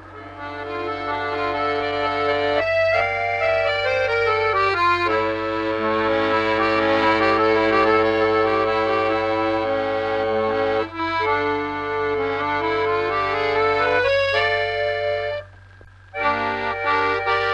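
Instrumental film music: slow held chords with a melody moving over them, in the reedy tone of an accordion-like instrument. It drops out for a moment near the end, then resumes.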